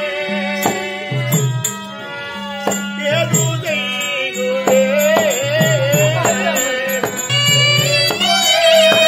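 Therukoothu theatre ensemble music: a wavering melody line over a steady repeating drum pattern, with frequent sharp cymbal clicks.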